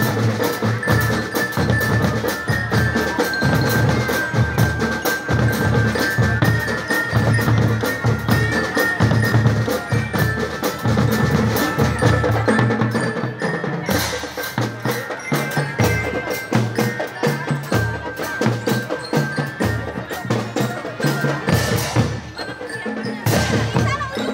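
Children's school drum band playing: bass drums and marching drums beat a dense, steady rhythm, with a high, bell-like melody held over it.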